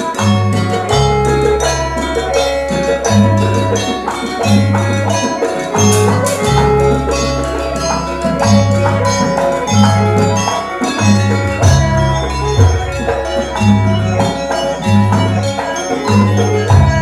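Traditional Indonesian percussion ensemble music with many ringing mallet-struck notes over a repeating drum pattern, and a deep low note struck about every five seconds.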